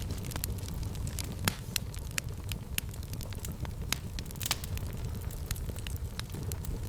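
Fireplace fire crackling, with frequent sharp pops over a low steady rumble of the flames; two louder pops come about one and a half and four and a half seconds in.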